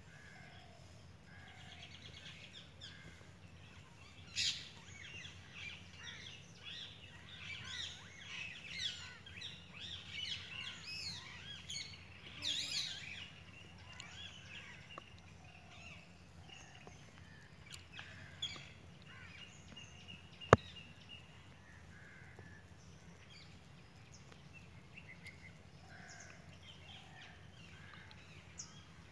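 Many small birds chirping and calling, busiest during the first half. There is a single sharp click about twenty seconds in.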